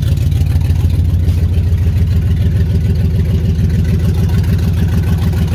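2005 Dodge Ram's 4.7 Magnum V8 idling steadily and loudly through an exhaust in need of repair and a muffler.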